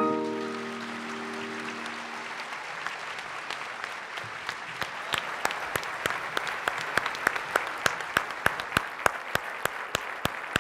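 Audience applauding as the last piano chord rings out and fades. Sharp, close single claps stand out more and more from about halfway through.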